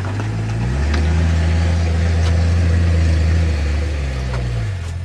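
An engine running steadily. A little under a second in its speed rises and the hum goes up in pitch. It holds there for a few seconds, then drops back near the end.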